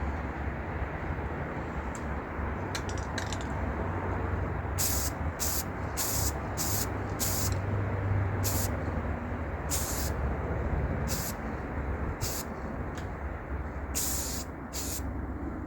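Aerosol spray paint can hissing in about a dozen short bursts, starting about five seconds in, as a model car hood is sprayed, over a steady low rumble.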